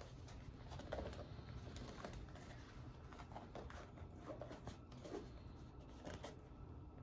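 Faint handling of a quilted leather clutch: light taps, clicks and rustles as its flap is opened and the inside is felt. A few faint low calls sound in the background, about a second in and again about five seconds in.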